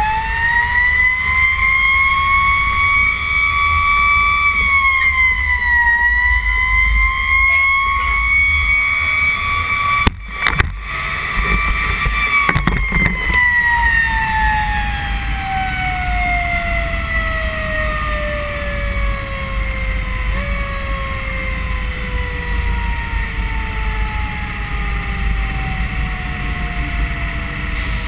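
Fire truck siren heard from inside the cab: it winds up quickly, holds high with a brief dip, then slowly winds down over the last fifteen seconds. The truck's engine rumbles underneath, and a couple of sharp knocks come about ten seconds in.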